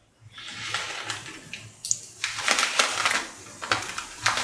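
Mustard seeds sizzling in hot oil in a pan. From about two seconds in they start to crackle and pop in quick irregular clicks, the sign the oil is hot enough for tempering.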